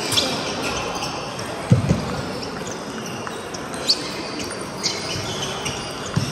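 Sharp, sparse clicks of a table tennis ball striking a bat or the table, over the steady background noise of a sports hall, with a dull low thump a little under two seconds in.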